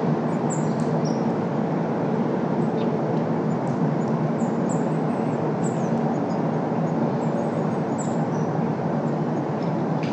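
Steady rumble of city traffic, its deepest low end filtered out. Many short, high bird chirps are scattered over it.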